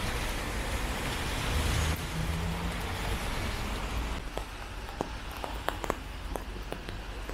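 Steady rain noise. About four seconds in it turns to a softer hiss with scattered light ticks.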